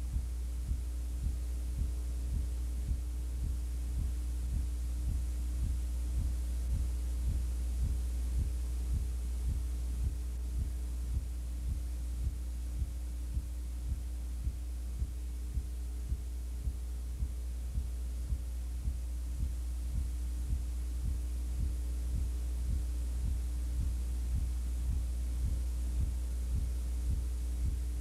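Steady low electrical hum with a regular faint ticking pulse a few times a second, and no game sound: the tape's audio track carries only hum.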